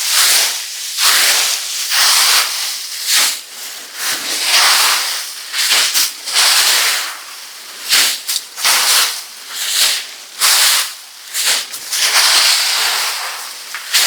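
Dry leaves rustling and crunching as they are scooped and pushed by hand, in repeated surges about once a second.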